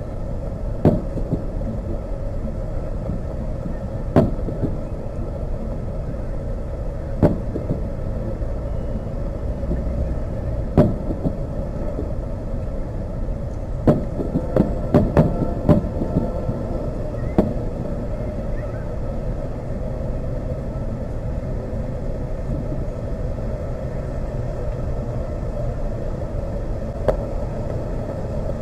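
Aerial fireworks shells bursting at a distance: single sharp bangs every three to four seconds, a quick run of four or five bangs about halfway through, then a long gap before one more near the end. A steady low rumble lies underneath.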